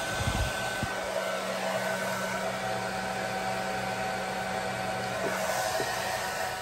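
Handheld hair dryer running steadily while blow-drying hair: a rush of air under a steady motor whine, with a couple of low bumps about half a second in.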